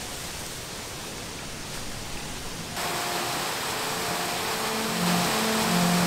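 Steady hiss of wind through tall bamboo leaves, then, about three seconds in, a sudden change to the louder rush of water spilling over a small rocky cascade. Low held string notes come in beneath the water near the end.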